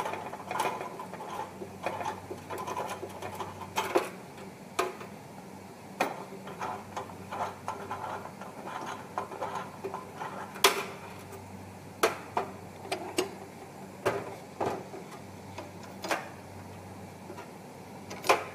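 Irregular sharp metallic clicks and knocks from hands and a screwdriver working on an induction sealer's steel conveyor bracket and rails while its screws are loosened, over a faint steady low hum.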